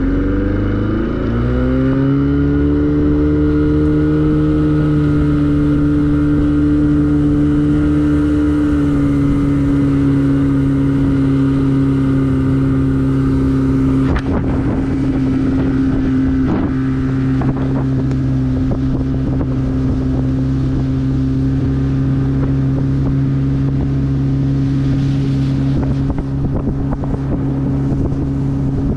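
Bass boat's outboard motor rising in pitch as the boat accelerates over the first couple of seconds, then running steadily at speed. Wind buffets the microphone from about halfway through.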